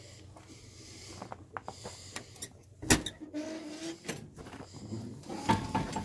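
Logging truck's cab door being opened: scattered clicks and handling knocks, then a sharp latch clunk about three seconds in with a short squeak after it, and another heavy knock near the end as the door swings open.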